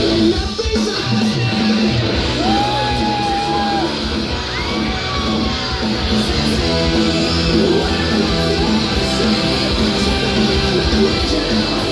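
Rock music with guitar and a voice singing and yelling over it, steady and loud, with a few sliding notes a few seconds in.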